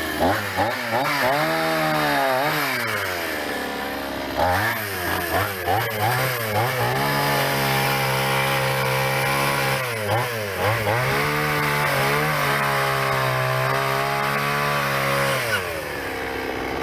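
Small two-stroke chainsaw engine running after restoration. It is revved in a string of quick blips, held at high revs for several seconds twice, and drops back to a lower idle near the end.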